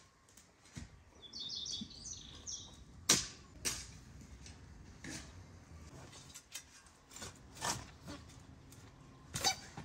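A quick run of bird chirps about a second in, followed by scattered sharp knocks and clicks, a cluster of them near the end as spades and a hoe strike the soil.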